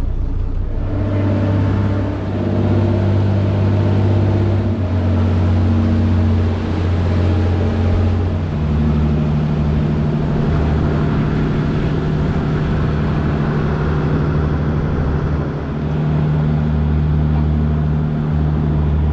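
Fishing boat's engine running under way, with the hull and wake water rushing past. The engine note steps up about a second in and shifts again around eight seconds.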